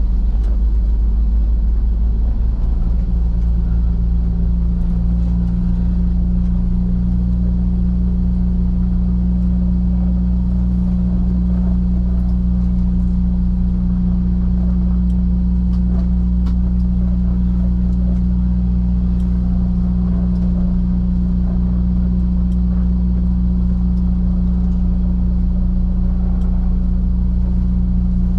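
Semi-truck diesel engine running at a steady speed, a low, even drone that drops slightly in pitch about three seconds in and then holds constant.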